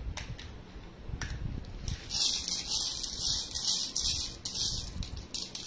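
Housie number tokens rattling as they are shaken, after a few light clicks.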